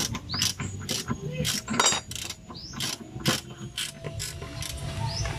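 Ratchet wrench clicking in short strokes, sharp clicks about twice a second, as the bolt through the rear lower arm and trailing arm is backed out.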